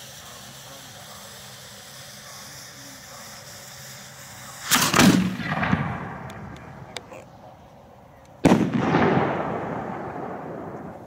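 Aerial firework shell: a fuse hisses steadily, then the shell fires from its mortar with a loud thump about four and a half seconds in, and about four seconds later it bursts overhead with a sharp bang that dies away slowly.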